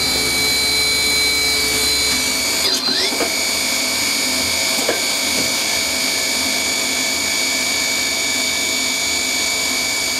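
Hanwha ML12 CNC Swiss-type lathe running its cycle with the main spindle at 5,000 RPM: a steady high-pitched machine whine that dips briefly in pitch and recovers about three seconds in, with a few light clicks.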